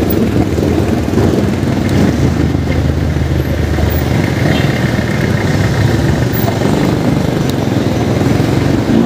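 Vehicle engine running steadily in street traffic, with a constant low drone and road noise.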